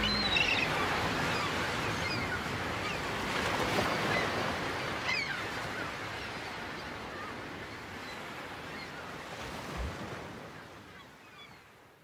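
Seaside ambience of wind and waves, with a few faint high chirps, fading steadily out toward the end.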